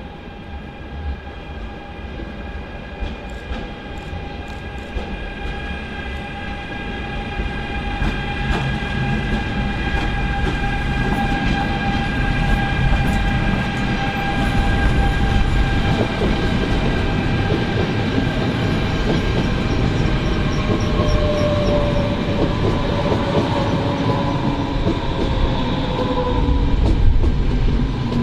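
Class 187 TRAXX electric locomotive passing slowly with a steady electric whine, hauling empty car-transporter wagons whose wheels rumble and click over the rails and points. The sound grows louder over the first half as the train comes close. A lower whine falls slowly in pitch late on.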